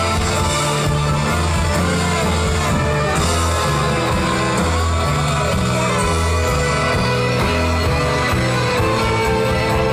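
Live band playing a song at full volume, with a bass line stepping from note to note under drums and other instruments.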